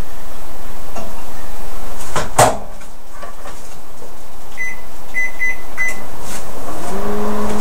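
Microwave oven running, stopping with a click about two seconds in. Four short high beeps follow, and near the end it starts up again with a steady low hum.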